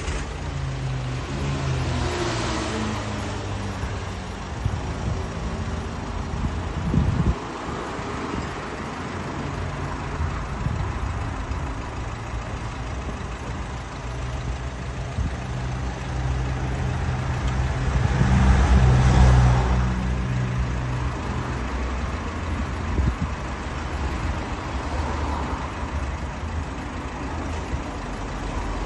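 Car engine running as the car drives off, its pitch rising and falling with the gears; it grows loudest about two-thirds of the way through, with a sharp knock about a quarter of the way in.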